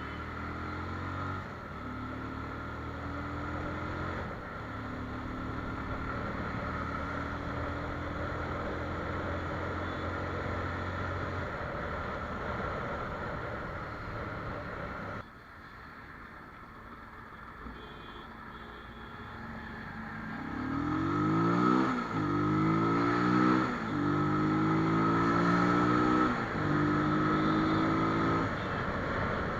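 Bajaj Pulsar single-cylinder motorcycle engine running with the rubber intake funnel removed from its air-filter box, which makes a louder, more roaring intake sound. It runs steadily at first, breaks off about halfway through, then is revved several times in quick rises and falls near the end.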